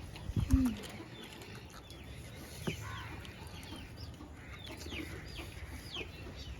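Chicks peeping over and over in short, high, downward-sliding chirps. A single low thump comes about half a second in.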